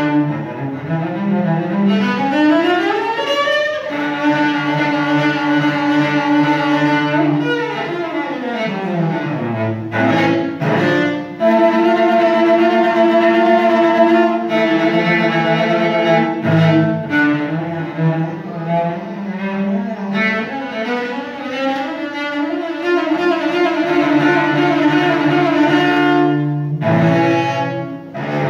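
Solo cello bowed through a melody of long held notes, with a quick rising run about a second in and a falling run around eight seconds in.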